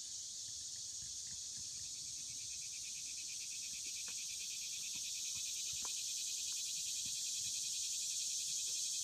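Chorus of cicadas droning steadily and high-pitched, growing slowly louder, with a faster pulsing layer joining about two seconds in.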